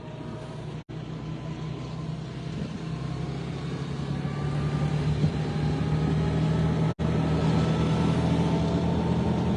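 Engine of the vehicle pulling a wagon ride, running steadily and getting gradually louder. The sound drops out completely twice, about a second in and about seven seconds in.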